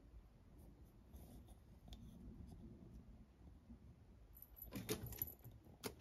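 Near silence, then a short cluster of rustles and light clicks about five seconds in.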